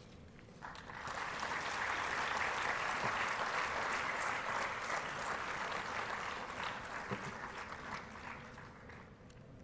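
Audience applauding in a large hall, starting about a second in and fading away near the end.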